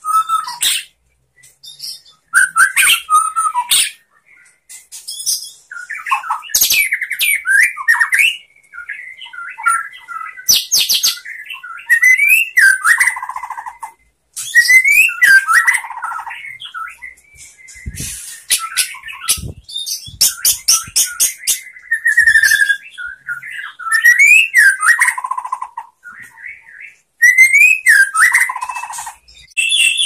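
White-rumped shama (murai batu) singing: loud, varied phrases of sliding whistles mixed with rapid strings of high, sharp notes, each phrase a few seconds long with short pauses between.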